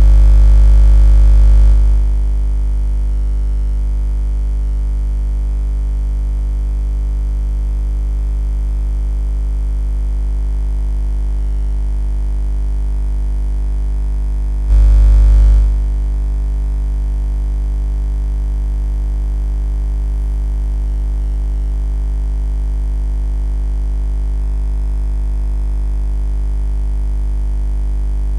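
Background music: a steady, unchanging drone with a heavy low end. It is louder for the first two seconds and again for about a second halfway through.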